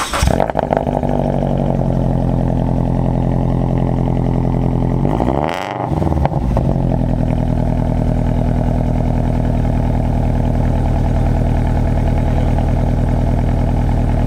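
Scion FR-S flat-four engine idling steadily through an aftermarket exhaust. About five seconds in the idle briefly dips in pitch and level, then settles back.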